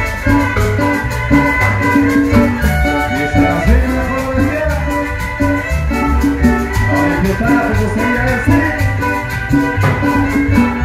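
Chanchona band playing a lively Salvadoran folk tune with a steady beat: violins carry the melody over the large plucked string bass (the chanchona) and a shaken percussion rhythm.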